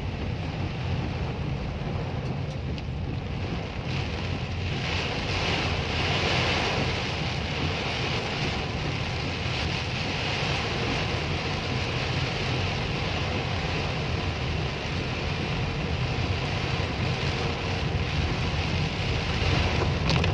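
Heavy rain hitting a car's roof and windshield, heard from inside the cabin over the steady low rumble of the car driving on a wet road. The rain hiss grows louder about five seconds in.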